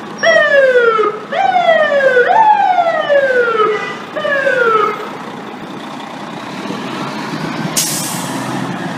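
Fire engine siren sounding four falling whoops in quick succession, each about a second long, and stopping about five seconds in. The fire truck's engine keeps running underneath, with a short hiss near the end.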